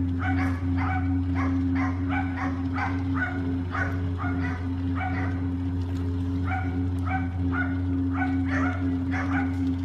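An animal barking over and over, about three short barks a second, with no let-up, over a steady low hum.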